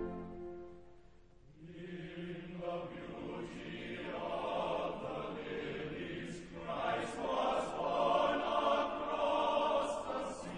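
Background music: the previous piece fades out in the first second or so, then a choir begins singing and carries on at a steady level.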